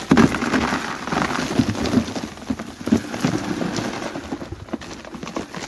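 Clumpy clay soil tipped out of a plastic tub into a plastic bucket: a rattling pour of clods and grit hitting the plastic, loudest at the start.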